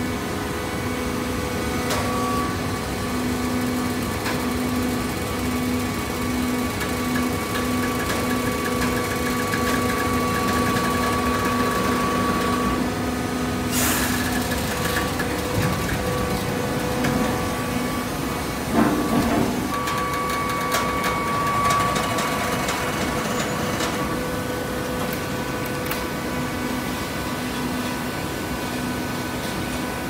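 Fully automatic horizontal hydraulic baler running: its motor and hydraulic pump make a steady mechanical hum. A sharp knock comes about halfway through, and a louder thump follows a few seconds later.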